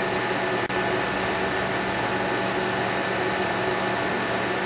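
Steady mechanical hum and hiss, like a running machine or ventilation, with one momentary dropout under a second in.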